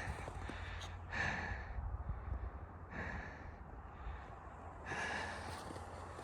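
A person breathing audibly, three breaths about two seconds apart, over a steady low rumble.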